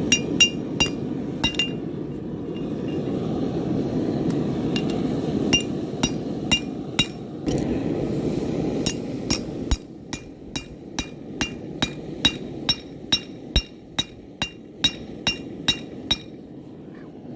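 Hammer blows forging a railroad spike on an anvil, each strike ringing. There are a few scattered blows at first, then a steady run of about two a second through the second half. A steady rushing noise underneath drops away about ten seconds in.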